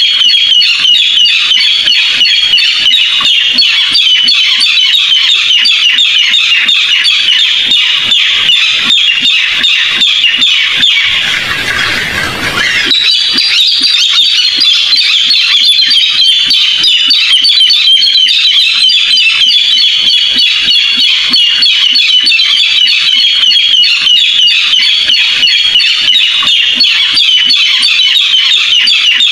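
Barred rail calling in a recorded call track used as a trapping lure: a fast, continuous run of harsh, high repeated notes. About eleven seconds in the calls give way for a second or two to a rush of noise, then resume.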